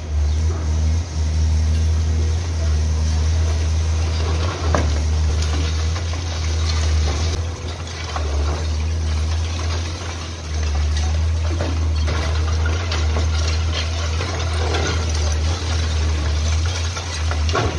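A diesel excavator engine runs steadily while the machine works a collapsed concrete building. There are occasional knocks and the crumble of falling concrete debris.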